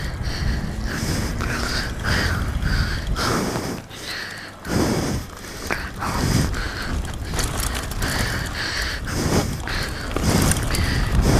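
Wind buffeting the camera's microphone and tyres rolling over dirt as a 2015 Norco Sight A7.2 mountain bike rides down a dirt trail. The noise drops briefly about four seconds in.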